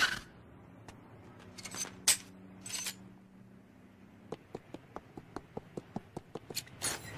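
Light cartoon sound effects: a few sharp metallic clinks, then light regular footsteps, about three or four a second. A low hum runs underneath until about four seconds in.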